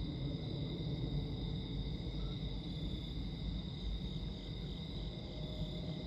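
Low steady rumble of a distant Boeing 777-300ER jet airliner on final approach, under a steady high-pitched chirring of night insects.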